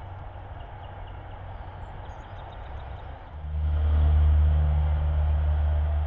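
A low, steady engine hum, much louder from about three seconds in.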